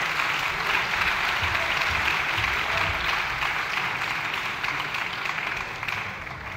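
Members of the chamber applauding steadily, dying away near the end.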